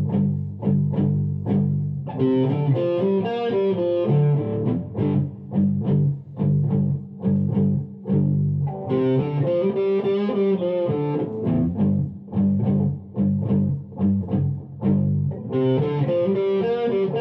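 Background music: a guitar-driven track with a steady beat and bass line, with melodic guitar phrases coming in and out.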